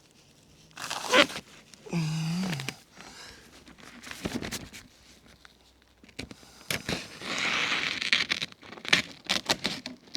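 Synthetic roofing underlayment (IKO Stormtite) crinkling and rustling as it is handled, with a longer rustle about seven seconds in and a run of short clicks and knocks near the end.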